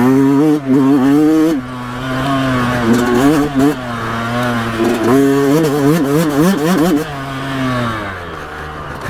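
Yamaha YZ125X's 125cc single-cylinder two-stroke engine being ridden through tight rutted turns, revved up and backed off several times so the pitch keeps rising and dropping. It settles to a lower, steadier note near the end.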